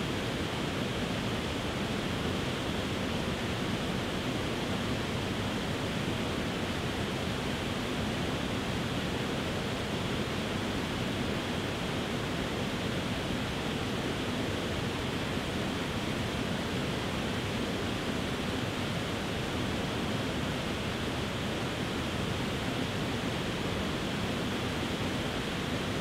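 Water pouring over a stepped rock waterfall into a shallow creek: a steady, unchanging rush.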